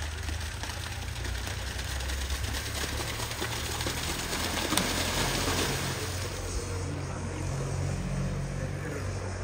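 An engine running steadily with a low hum, and a single sharp click about five seconds in.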